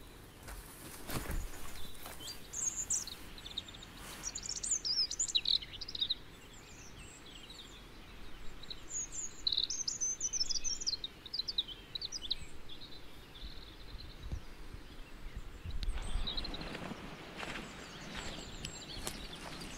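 A songbird singing two long, high, warbling phrases with a pause between them. Near the end there is some rustling.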